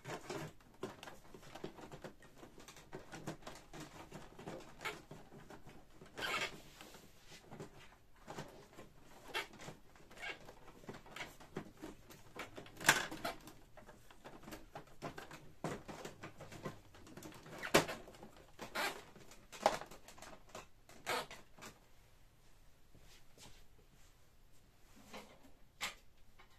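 Plastic housing of a Canon PIXMA MP-series inkjet printer being handled and taken apart: irregular clicks, knocks and scraping of plastic parts. A couple of sharper knocks come a little under halfway through and again about two-thirds of the way in.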